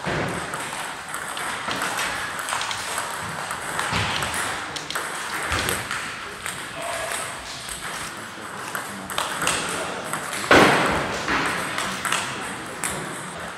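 Table tennis rally: a plastic ball repeatedly clicking off paddles and the table, with the hall's background voices. A brief, louder burst of noise comes about ten and a half seconds in.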